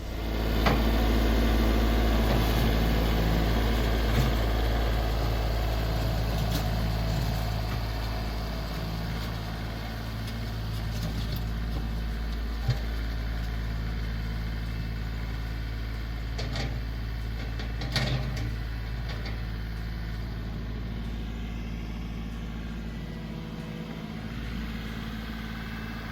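John Deere 2032R compact tractor's diesel engine running steadily, with a few short clunks scattered through.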